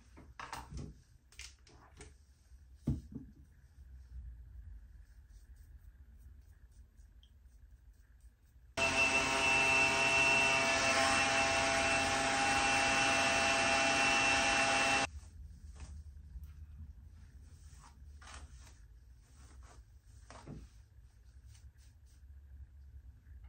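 Handheld hair dryer running for about six seconds, switched on about nine seconds in and cut off suddenly: a steady blowing with a thin high whine. Before and after it, soft rustles and small clicks of hands handling the hair.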